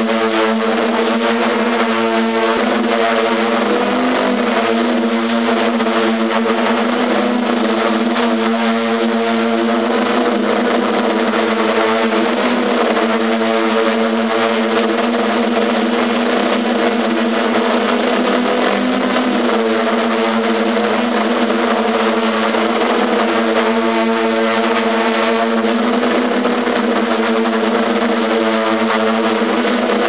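Hexcopter's six electric motors and propellers buzzing steadily in flight, heard through the onboard camera's microphone. The pitch of the hum dips briefly twice as the motors adjust.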